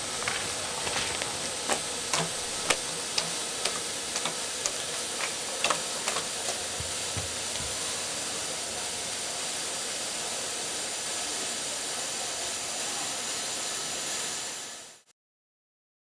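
Steady hiss and a faint hum from a gantry machine working its nozzle head over a liquid-covered table, with scattered sharp clicks over the first several seconds. The sound fades out about fourteen seconds in.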